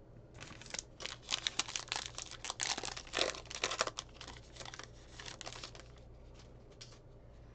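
Plastic-foil wrapper of a Topps Heritage baseball card pack crinkling and tearing as it is ripped open: a dense run of sharp crackles from about half a second in, loudest around three to four seconds, thinning out after about five.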